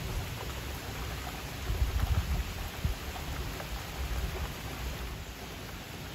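Steady rain falling, with a low rumble of distant thunder that swells about two seconds in and dies away toward the end.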